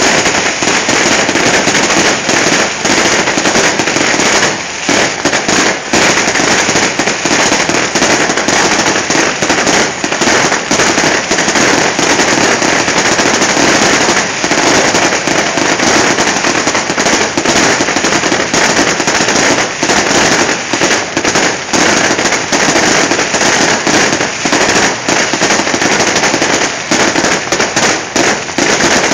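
Fireworks display: a loud, dense, unbroken barrage of cracks and bangs from many fireworks going off at once, with only brief dips.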